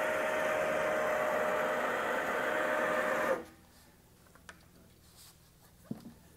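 Electric motor of a powered tire-and-wheel lifter running with a steady whine as it lowers a wheel. It cuts off suddenly about three seconds in, and a few light clicks follow.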